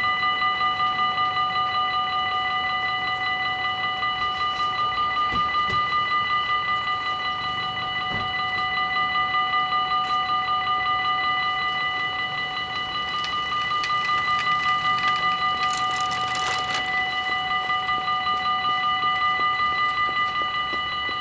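Electric warning bells of a Dutch AHOB automatic level crossing ringing in a rapid, steady, even pulse. The ringing means the crossing is closed: the lights are flashing and the half-barriers are down for an approaching train.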